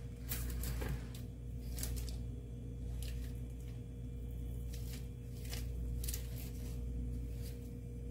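Knife cutting through a slab of coconut barfi onto butter paper over a wooden board: irregular short taps and paper rustles. A steady low hum runs underneath.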